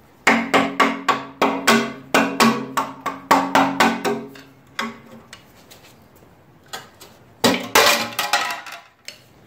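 Metal front cover of a Ford 6.9/7.3 IDI diesel engine block being knocked loose: quick repeated taps, about four a second, each with a low ringing note. A few lone knocks follow, then a short burst of louder metal clatter about seven and a half seconds in as the cover comes free.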